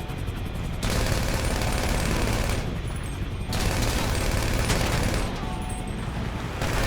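Video game gunfire: sustained automatic fire in three long stretches of about two seconds each, with short lulls between them.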